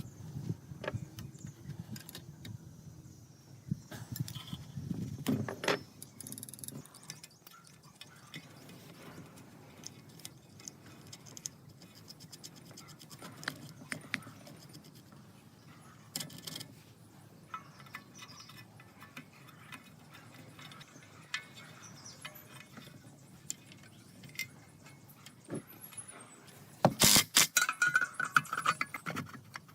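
Scattered light clicks and knocks of small metal parts and tools being handled at a workbench, with a dense run of loud, rapid rattling clicks near the end.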